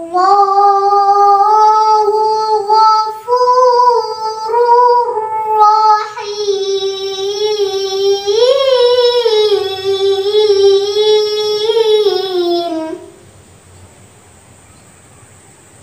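A young girl's solo melodic Quran recitation (tilawah): long held notes with ornamented, wavering pitch and two short breaths, stopping about thirteen seconds in.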